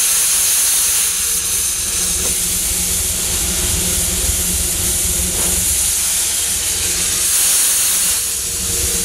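Steady hiss of steam from a Disneyland Railroad steam locomotive, with a low rumble underneath.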